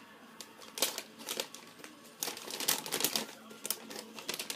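Gift wrapping crinkling and rustling as a wrapped present is handled and opened by hand, in a run of irregular sharp crackles that grows busier after about two seconds.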